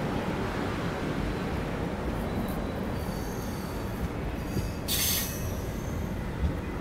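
Indian Railways passenger express running on the rails with a steady rumble. Thin high-pitched wheel squeals come in from about two seconds in, and there is a short, loud hiss about five seconds in.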